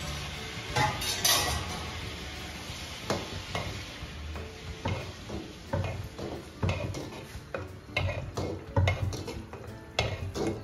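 A wooden ladle stirring thick rice pongal in a brass pot on a gas flame, the ladle knocking and scraping against the pot in repeated strokes, roughly one every half second to a second.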